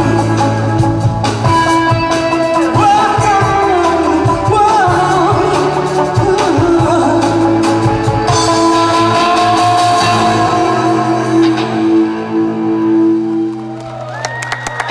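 Live indie rock band playing with a singer over guitars, the last chord held and fading near the end.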